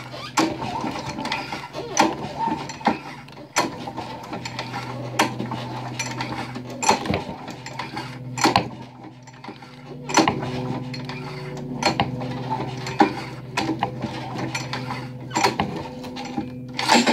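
A small machine running with a steady low hum, with irregular clicking and clattering over it throughout.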